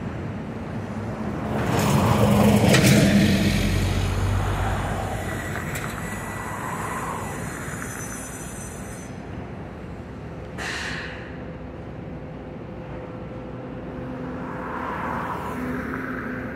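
Street traffic: a vehicle passes close by, loudest two to three seconds in, then fades. A short hiss comes about ten seconds in, and another vehicle swells up near the end.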